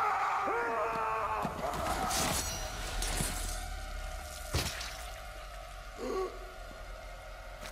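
A man's loud, drawn-out yell of rage, followed by scuffling noise and a heavy thud about four and a half seconds in, then a short groan near the end.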